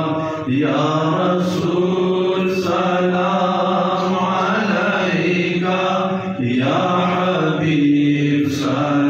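A man chanting a Pashto salam, a devotional poem of greeting to the Prophet, as a solo voice into a microphone. He holds long, drawn-out notes, pausing briefly for breath about half a second in and again about six seconds in.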